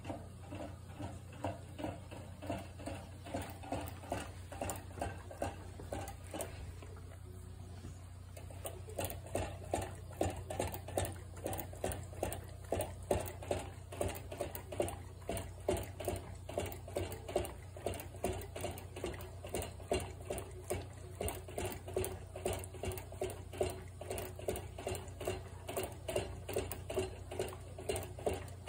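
American Cocker Spaniel licking the nozzle of a gravity-fed water bottle on its crate, its tongue working the valve in quick clicking laps. The laps are softer at first and come at about three a second, louder, from about nine seconds in. A steady low hum runs underneath.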